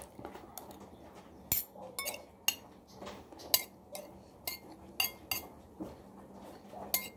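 Metal spoon and fork clinking and scraping against a dish while eating: a dozen or more short, irregular clinks.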